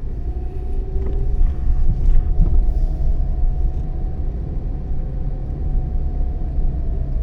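Nissan Kix's cabin noise while driving: a loud, steady low rumble of road and engine with a faint steady whine above it. It cuts in abruptly at the start.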